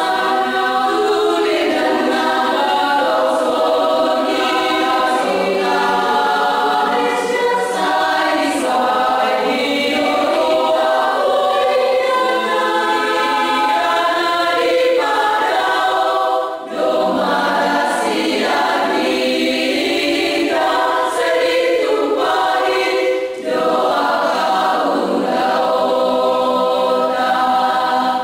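A women's choir singing a cappella, many voices together, with two brief pauses between phrases, about seventeen and twenty-three seconds in.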